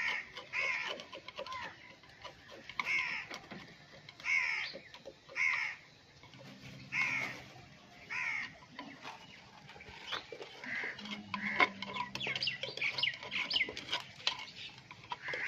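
A bird calling over and over, one loud call about every second for the first half. From about ten seconds in, a run of quick taps and scrapes as ground garlic-ginger paste is knocked out of a mortar onto a metal tray.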